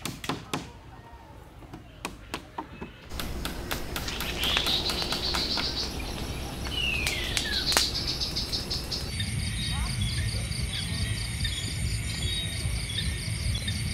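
A few sharp knocks at first, then birds calling over a steady hiss. From about nine seconds in, a steady night chorus of crickets takes over.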